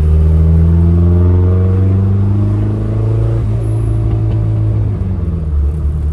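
Turbocharged Mazda Miata's four-cylinder engine pulling through a gear, its note rising steadily for about three seconds, then settling to a lower steady drone.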